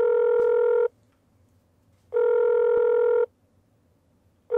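Telephone ringback tone heard through the phone's earpiece: a steady buzzing tone in pulses of about a second with gaps of about a second between them, twice, and a third starting near the end. It signals that the line is ringing and the call has not been answered yet.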